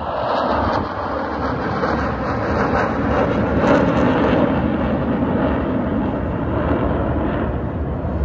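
Airplane engine noise overhead, a steady rush, with wind buffeting the microphone.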